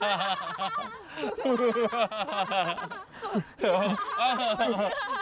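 Several people, a man and women, laughing together in a long fit of overlapping laughter, with a brief lull about three seconds in before it picks up again.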